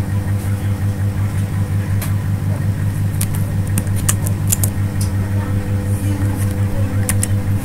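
A loud, steady low hum with a fast throb, with keyboard keys clicking in a quick run about three seconds in and once or twice more near the end.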